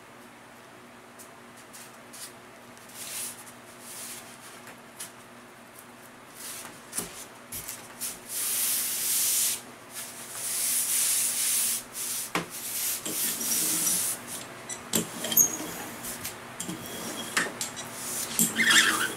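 Hands rubbing and pressing a foam board down onto double-sided tape, giving long hissing sweeps across its surface, then scattered taps and small squeaks. A faint steady hum lies underneath.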